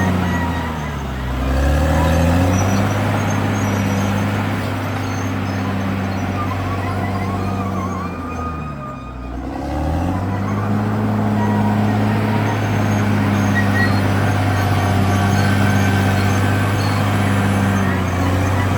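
CAT D6R XL bulldozer's diesel engine running hard. Its revs sag and recover about a second in and again around nine seconds in, as the load comes on and eases.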